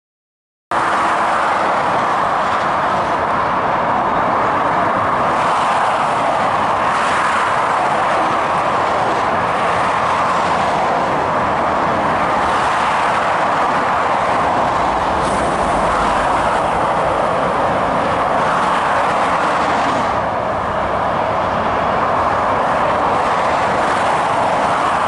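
Steady roar of busy motorway traffic, mostly tyre noise, swelling and easing slightly as vehicles pass. It cuts in abruptly less than a second in.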